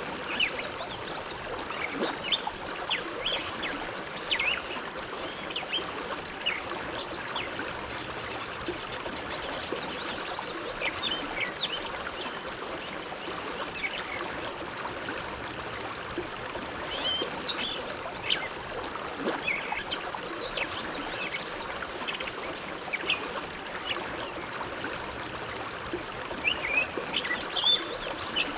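River flowing steadily, a constant rush of water with many small bright splashes and trickles over rocks.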